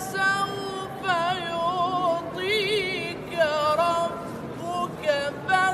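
A man's solo melodic Quran recitation. His voice is high and ornamented, in short phrases with gliding turns and rapid wavering trills on held notes.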